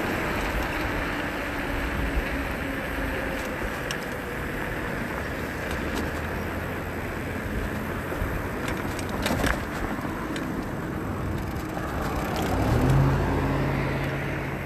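Wind rushing over the microphone of a moving e-bike, with road traffic going by. Near the end a car passes close alongside, and its low engine hum swells briefly.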